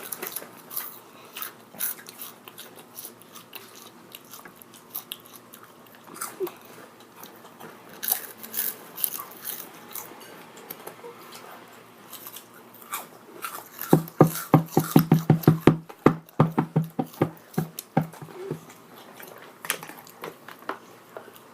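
Crunchy Cheetos being bitten and chewed close to the microphone: scattered crisp crunches, with a dense run of loud crunches about two-thirds through.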